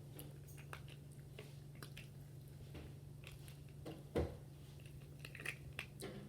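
Close-up chewing and biting of KFC fried chicken, with scattered crunchy clicks and one louder bite about four seconds in.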